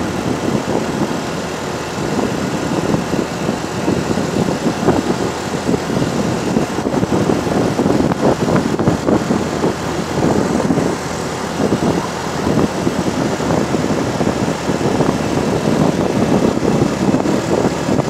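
Strong wind buffeting the microphone while riding, rising and falling in gusts, over a vehicle engine running steadily underneath.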